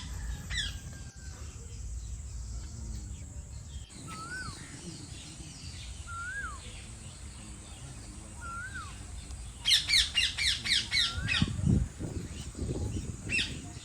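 Wild birds calling: a short rising-then-falling whistle repeated about every two seconds, and about ten seconds in a loud burst of rapid harsh calls, the loudest thing here. A low rumble of wind on the microphone runs under the first few seconds, and a few low thumps follow the burst of calls.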